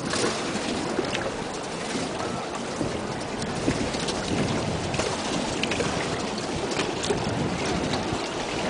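Sea water lapping against a jet ski's hull, with small splashes ticking here and there, and wind on the microphone.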